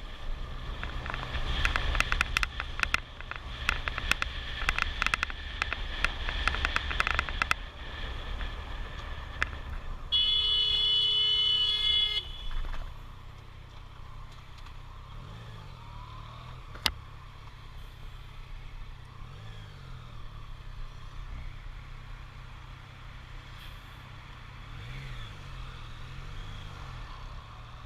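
Road vehicle noise with a steady low rumble. Sharp crackling clicks run through the first eight seconds, and a single steady alarm-like tone sounds for about two seconds around ten seconds in.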